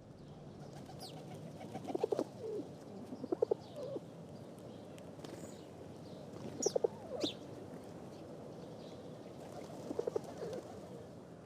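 Birds calling: short low calls come in four clusters, with a few high chirps between them, over a steady background hiss.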